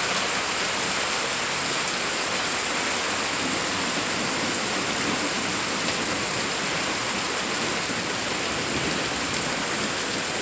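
Steady rain falling, an even hiss that doesn't change, with no thunder.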